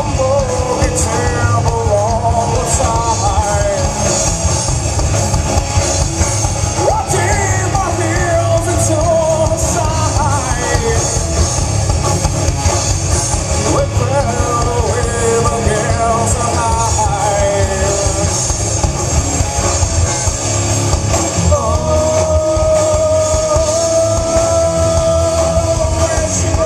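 Live rock band playing electric guitars, bass and drums, with a man singing over them; near the end he holds one long note.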